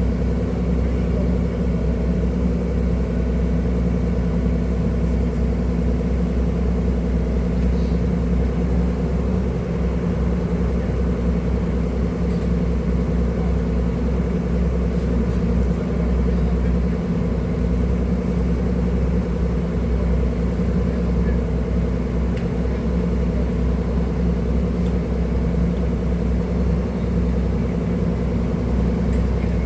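Excavator's diesel engine running at a steady speed, a continuous low rumble with no clear revving.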